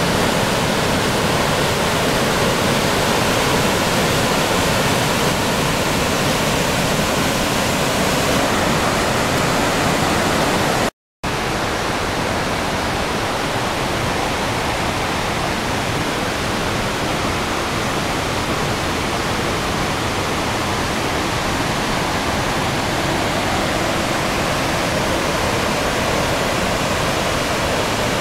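Steady rushing of a large waterfall. It cuts out for a moment about eleven seconds in, then a slightly quieter, steady rush of falling water carries on.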